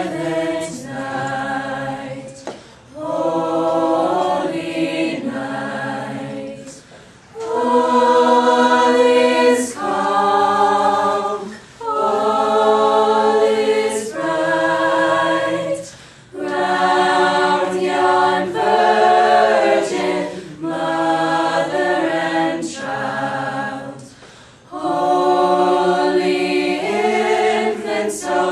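Mixed-voice a cappella choir singing slow, held chords in phrases of about two seconds, with short breaths between phrases.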